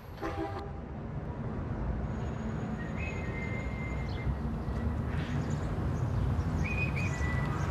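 Outdoor street ambience: a steady low rumble of traffic, with a bird chirping briefly about three seconds in and again near the end.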